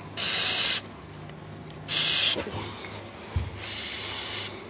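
Aerosol can of WD-40-type penetrating spray hissing in three short bursts, the last about a second long, as it is sprayed onto a handbrake linkage that tends to stick. A light knock comes just before the last burst.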